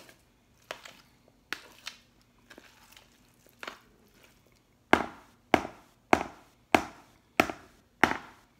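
A metal spoon knocking against a large plastic bowl while mixing and breaking up potato salad: a few scattered light knocks, then about halfway through six sharp, evenly spaced strikes a little over half a second apart.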